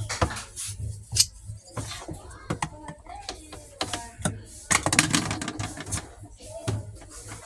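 A run of sharp clicks and knocks, densest about five seconds in, with brief voices in between.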